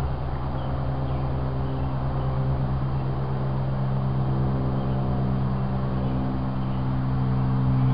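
A steady, low-pitched motor hum that grows louder over the last couple of seconds.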